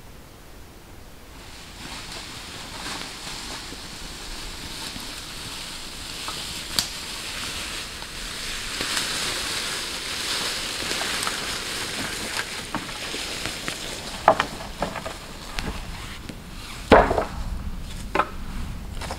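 Rustling of footsteps and branches being carried through grass and leaf litter, then several dry wooden knocks and clatters as sticks are set down on the ground, the loudest a little before the end.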